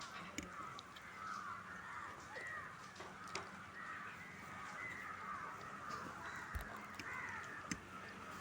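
Faint crows cawing again and again, with a few small clicks in between.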